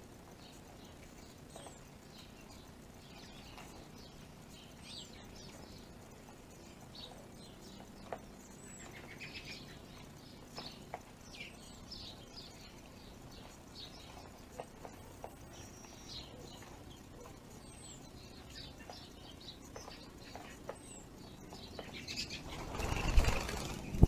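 Small birds at a feeder chirping and twittering in short, scattered calls, with occasional light ticks. Near the end, a loud fluttering rush of wings as birds take off.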